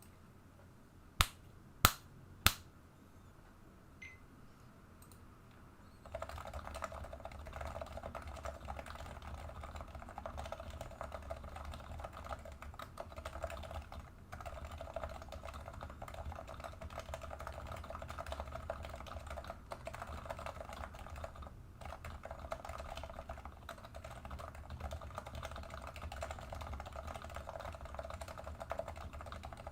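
Three loud, sharp clicks about a second in, then from about six seconds in continuous fast typing on an FC660C Topre keyboard with lubed 45 g silent domes and lubed stabilisers.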